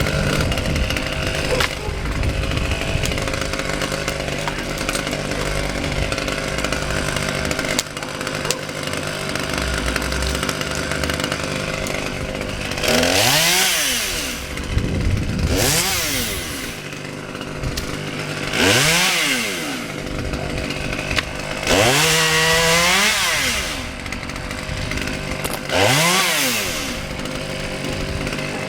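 Husqvarna T540 XP two-stroke chainsaw running steadily, then revved to high speed about five times, each rev rising and falling back.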